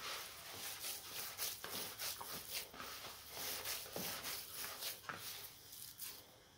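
Hands kneading damp bulgur mixed with tomato and pepper paste in a plastic bowl: irregular soft squishing, rustling strokes, dying down near the end.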